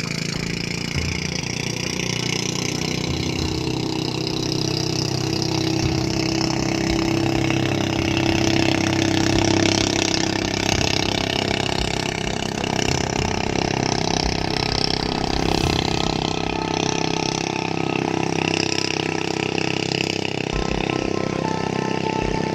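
Motorboat engine running steadily at speed, its pitch drifting slightly.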